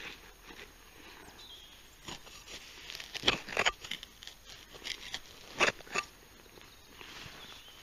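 Digging into soil to free a buried find: a handful of sharp scrapes and knocks, the loudest about three seconds in and again a little past five and a half seconds.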